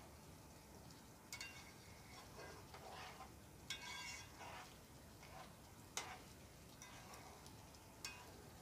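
Wooden spatula stirring a thick curry in a frying pan: faint scraping through the sauce, with a few light knocks of the spatula against the pan about every two seconds.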